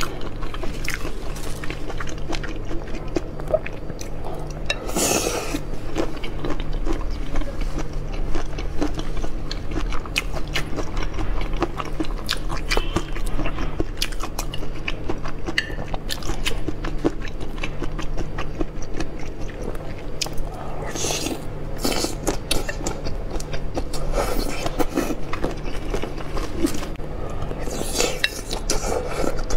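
Close-up eating sounds of large prawns in chili sauce: repeated crunchy bites and wet, sticky chewing, with a few louder bites. A steady low hum runs underneath.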